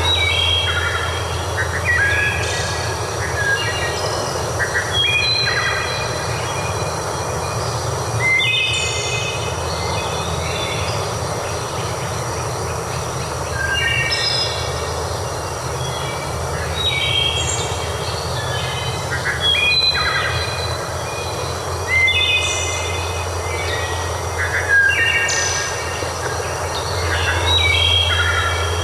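Songbirds singing short, repeated phrases every few seconds over a steady rushing background with a constant low rumble.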